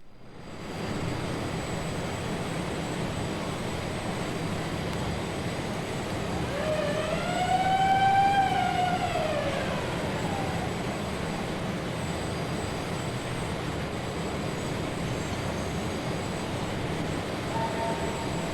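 Recorded vehicle sound effect: a steady rumble starts after silence, with one wail that rises and then falls over about three seconds in the middle, and two steady tones joining near the end.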